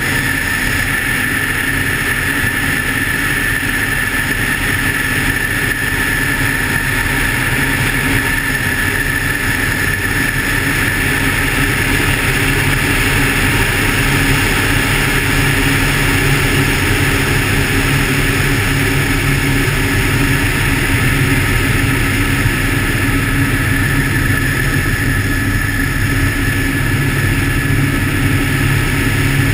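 Helicopter in flight: steady engine and rotor noise with a high, steady whine.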